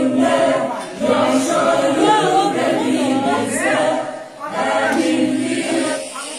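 A group of high, children's voices singing together without instruments, in two phrases with a short break about four seconds in.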